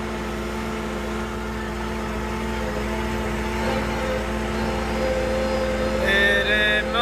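A vehicle's engine running steadily at a constant pitch while under way. Near the end comes a brief high-pitched sound that shifts pitch a few times.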